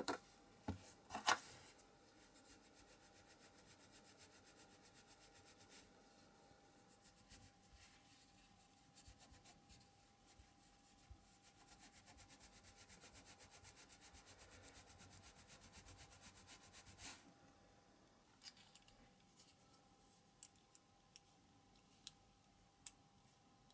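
Cloth with chrome polish paste rubbed fast back and forth over a small metal diecast part, a faint, even scrubbing that stops abruptly. A few light clicks of small parts being handled come just before it and in the last few seconds.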